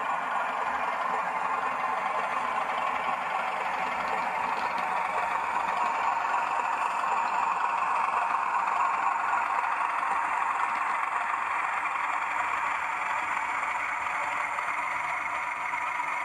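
Hornby TTS sound decoder in a model British Rail Class 31 diesel locomotive, playing its diesel engine sound through the model's small speaker as the locomotive runs along the track, with wheel and track noise. It grows louder as the model approaches, loudest about halfway through, then eases slightly.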